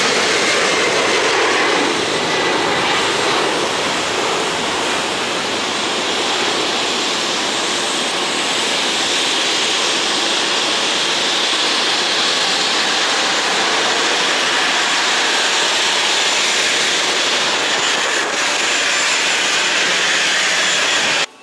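Loud, steady jet airliner noise on an airport apron, a little louder in the first couple of seconds, cutting off suddenly near the end.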